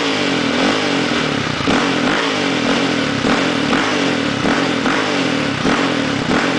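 Yamaha Raptor 700R ATV's single-cylinder four-stroke engine, breathing through a Monsterquad dual aftermarket exhaust, revved in quick throttle blips, close to two a second.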